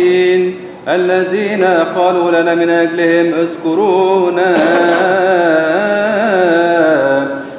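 Coptic liturgical chant: a single voice singing a slow melismatic melody, with long held notes and wavering ornamented turns. It breaks off briefly just under a second in.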